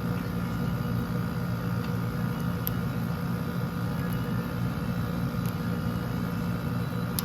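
Steady mechanical hum of a running appliance such as a fan or air conditioner, with a few faint light ticks over it.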